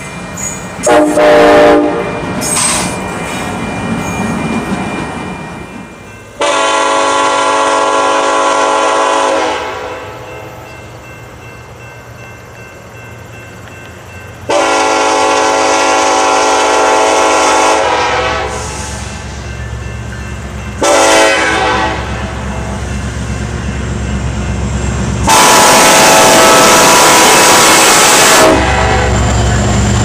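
Nathan Airchime K5LLA five-chime locomotive air horn sounding a series of blasts: a few short toots about a second in, then three long blasts of about three seconds each, with one short blast between the last two. Between the blasts a low train rumble carries on.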